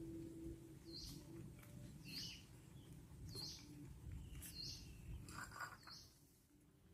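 Faint, short, high bird chirps repeating evenly about once a second, over a low background hum.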